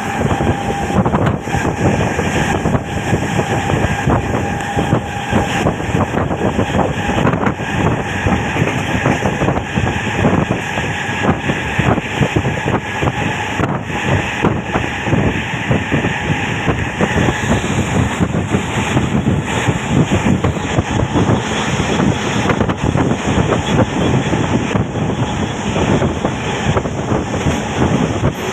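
Train running at speed, heard from on board: a steady rumble with a fast, continuous clatter of wheels on the rails.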